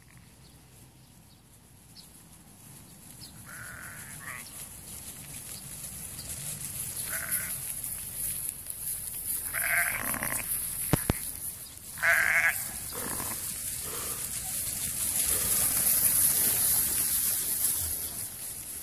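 Sheep bleating, about four separate calls, the last two loudest, over a high hiss that grows louder near the end as the flock crowds in close.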